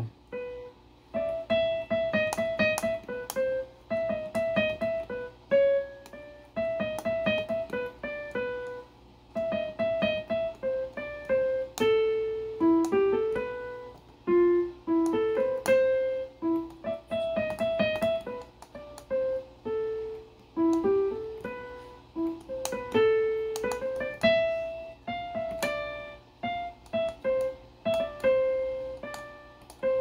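Casio WK-245 digital keyboard in its default piano sound, playing a slow one-handed melody of single notes. The phrases repeat, with short pauses between them.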